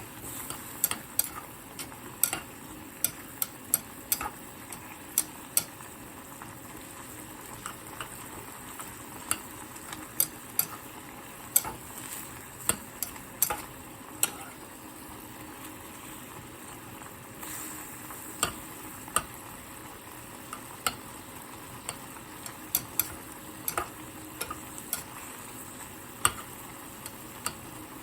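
A meat braise in fish sauce and sugar sizzling and bubbling in a pot as its sauce cooks down and thickens, with sharp irregular clicks and pops through it.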